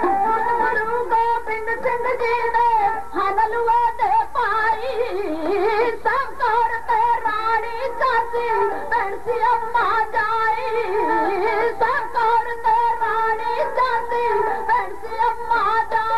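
Punjabi dhadi music: a sarangi playing a wavering, voice-like melody over strokes of the dhadd hourglass drum.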